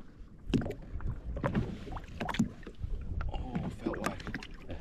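Small waves slapping against the hull of a drifting jet ski, with irregular knocks and clicks and a low wind rumble.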